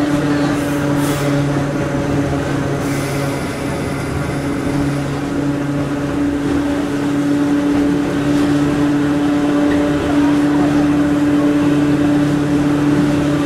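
Hakone Tozan Railway Moha 1-class car Moha 107 running, heard inside the car: the nose-suspended (tsurikake) traction motors and gearing give a steady hum at an unchanging pitch over the rumble and rattle of the wheels on the rails. There are a couple of clicks in the first few seconds.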